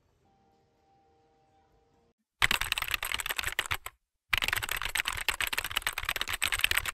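Keyboard-typing sound effect: rapid, dense clicking in two runs, about one and a half and two and a half seconds long, each stopping abruptly, after about two seconds of near silence. It goes with on-screen text typing itself out.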